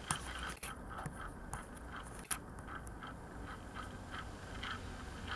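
Motorized display turntable turning, with a light tick repeating about twice a second over a low steady hum, and a few sharper clicks in the first half.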